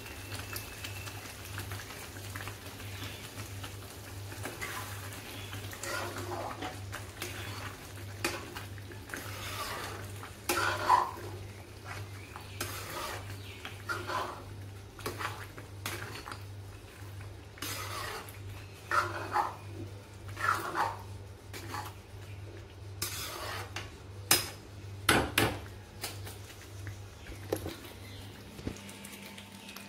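Metal spatula stirring thick pav bhaji in a metal pan, scraping and clinking against the pan at irregular intervals, with a few louder knocks. A steady low hum runs underneath.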